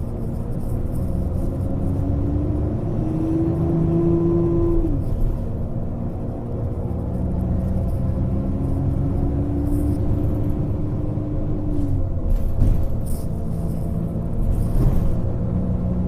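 Radiator-area whine on a Scania K380IB HPI bus over the steady rumble of its running engine: a clear tone that holds, drops in pitch, climbs back about three seconds in, drops again near five seconds, returns lower around eight seconds and falls away near twelve. This is the strange radiator sound the owner is recording. A few short clicks come near the end.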